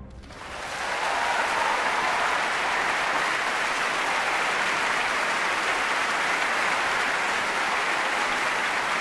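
Large concert-hall audience applauding, the sound building over about the first second and then holding steady.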